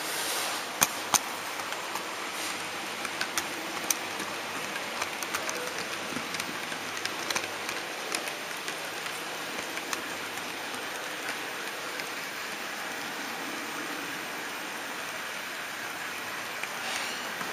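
Model train running along its track, heard from the car that carries the camera: a steady rolling hiss with sharp clicks from the wheels on the rails, two loud ones about a second in and more scattered through the first half.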